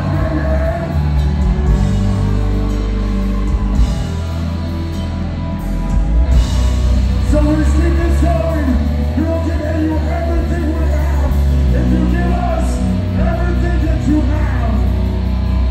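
Metalcore band playing live at full volume: distorted electric guitars, bass, drums and keyboard, with the lead vocalist singing and yelling over them in a large hall.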